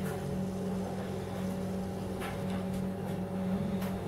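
Steady low hum, like a small motor or electrical hum, with a few faint clicks.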